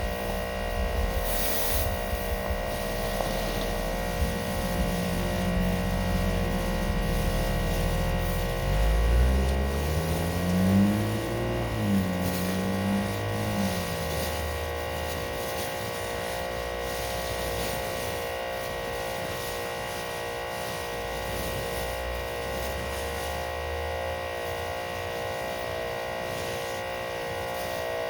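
Electric pressure washer running steadily, its motor and pump giving a constant whine, while driving a surface cleaner attachment. A lower sound wavers up and down in pitch for a few seconds near the middle.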